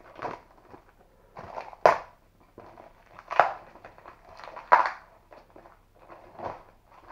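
Plastic parcel wrapping crinkling and rustling as it is cut and pulled open, in about five short bursts, two of them with a sharp crackle.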